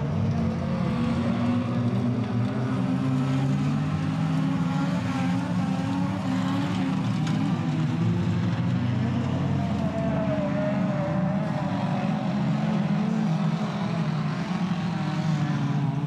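Engines of a pack of production-based autocross cars racing on a dirt track. Several engine notes overlap in a steady din, their pitch wavering up and down as the drivers work the throttle.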